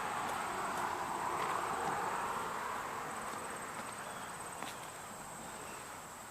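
An insect, such as a cricket or katydid, trilling steadily at a high pitch over a rushing background haze that slowly fades, with a few faint ticks.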